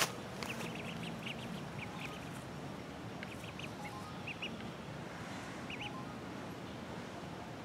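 Ducklings peeping: short, high chirps that come in small scattered clusters.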